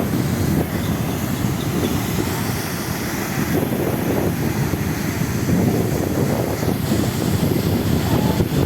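Nar-Madi waterfall's water falling in a steady, deep, unbroken rush.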